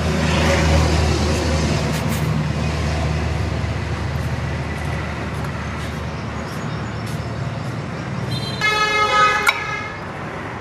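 Road traffic: a vehicle engine hums low and steady, fading out about two-thirds of the way through, then a vehicle horn toots for about a second near the end, with a few light clicks.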